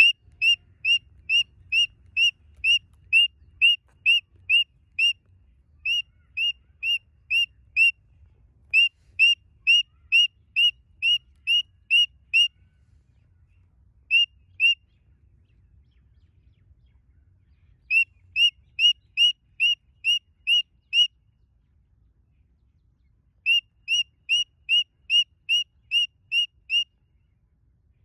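Cockatiel whistling the same short rising note over and over, about two and a half notes a second, in runs of several seconds broken by pauses.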